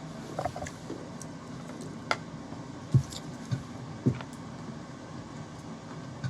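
Scattered small clicks and soft knocks of someone eating, over a steady low hum. The loudest knock comes about three seconds in.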